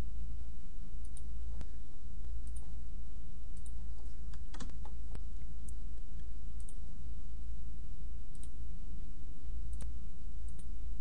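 Computer mouse button clicks, scattered about once a second with a quick run of several near the middle, over a steady low electrical hum.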